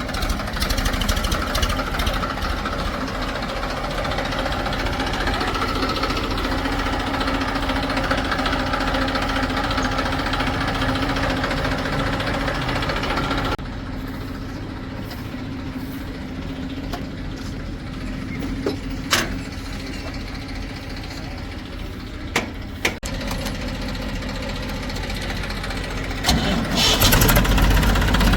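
Heavy diesel machinery running steadily at a working idle, with a steady low hum. About halfway through, the sound drops abruptly to a quieter running engine. A few sharp knocks follow, and near the end it grows louder again.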